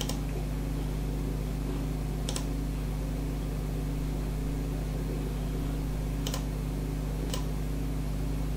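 An old desktop computer running with a steady hum, and a computer mouse clicking four times, with the clicks spaced about two, four and one second apart.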